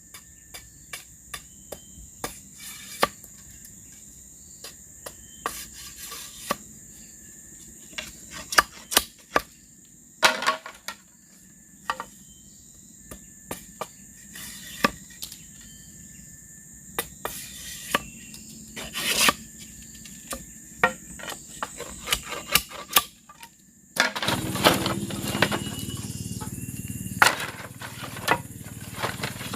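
Irregular sharp knocks and taps of hand work on bamboo, over a steady high-pitched drone of insects. About 24 seconds in, a low rumble sets in underneath.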